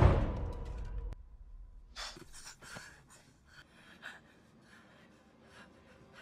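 A loud sound dies away over the first second. Then a woman's faint gasps and breaths follow in short bursts, a few tenths of a second apart.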